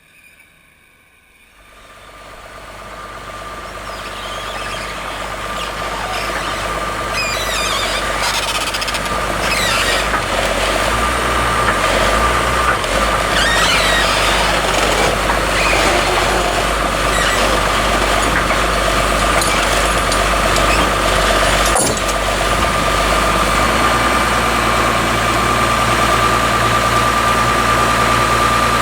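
Sawmill machinery powering up about a second and a half in, building over several seconds to a loud, steady running sound: a low engine drone under a steady high whine.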